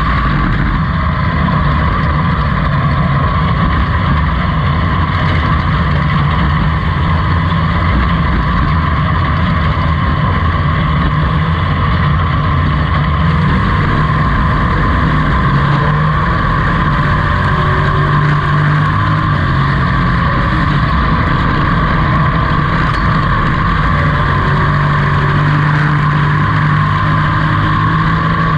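Pro-truck dirt-track race car's engine running hard at racing speed, heard from inside the cockpit: a loud, steady drone that doesn't let up.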